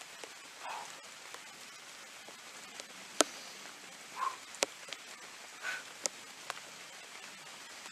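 A person's heavy breathing in a few short breaths while recovering from exercise, with several sharp clicks over a faint steady hiss.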